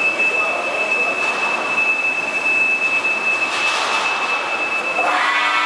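Heller PFU 3 bed-type milling machine running, a steady machine noise with a high, steady whine. About five seconds in the sound changes suddenly to a denser set of high tones.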